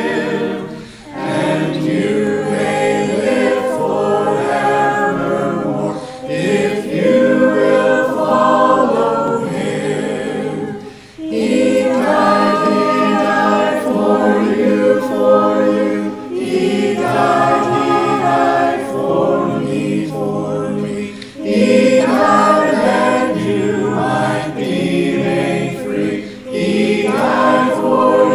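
Mixed choir of men, women and children singing an arranged gospel hymn, many separately recorded voices layered into one virtual chorus. The singing breaks briefly between phrases about a second in, about eleven seconds in and about twenty-one seconds in.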